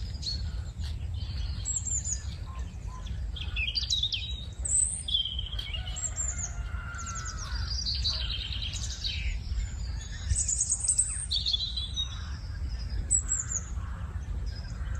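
Several songbirds chirping and singing, short quick calls and trills overlapping one another, over a steady low hum.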